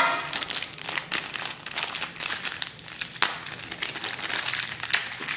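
A small clear LDPE plastic bag crinkling and crackling in the hands as it is worked open, with a few sharper crackles along the way.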